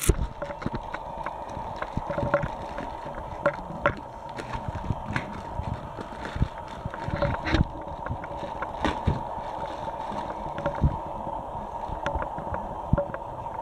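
Crinkling and rustling of a plastic postal mailer bag being cut open with scissors and torn apart by hand, then a cardboard box being slid out and handled. Irregular crackles and clicks run throughout, over a steady faint hum.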